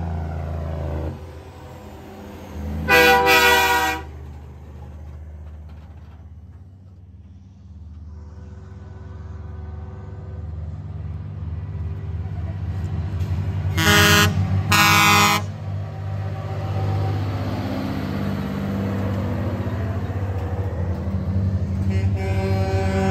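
Semi trucks driving past with their diesel engines running, sounding air horns: one long blast about three seconds in and two shorter blasts in quick succession near the middle. The engine drone grows louder near the end as another truck approaches.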